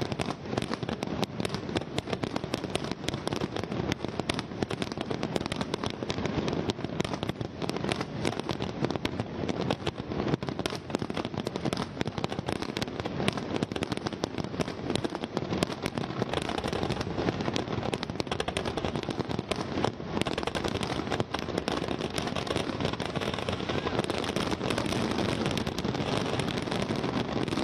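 Aerial fireworks barrage: many shells bursting in rapid succession, a continuous string of sharp bangs and crackling. In the second half it turns into a more even crackle.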